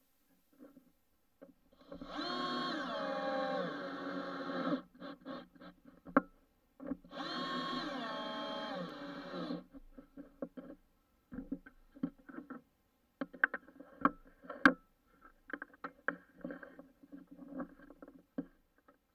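Cordless drill-driver running twice for about three seconds each, driving two screws into an oak block; the motor's pitch drops once in each run as the load comes on. Then scattered clicks and knocks of the wood block and tools being handled.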